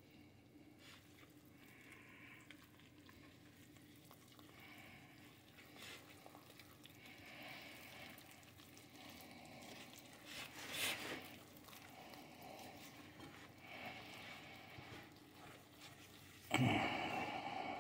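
Faint, irregular squishing and scraping of a silicone spatula stirring milk into self-rising flour in a bowl, the mix still lumpy and floury. A brief louder scrape about eleven seconds in, and a louder bump near the end.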